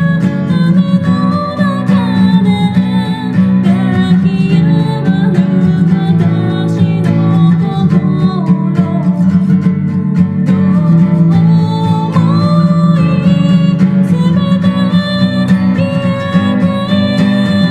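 Acoustic guitar strummed as accompaniment, with a voice singing a melody over it.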